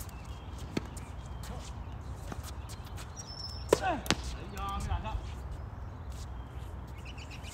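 Tennis ball struck by rackets in a doubles rally on a hard court: a fainter hit under a second in, then a sharp, loud racket strike a little over three and a half seconds in, quickly followed by a second, softer knock. Short squeaks come just after the loud hit.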